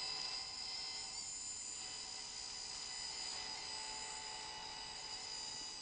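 The electric hydraulic pump of a JDM-196 RC flatbed rescue truck runs with a steady high whine while it drives the hydraulic bed back into position.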